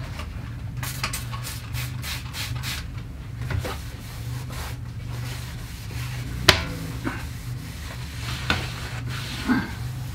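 A trigger spray bottle of cleaner squirting several times in quick succession, then a cloth rubbing and wiping the inside of an overhead cabinet, with a sharp knock about midway. A steady low hum runs underneath.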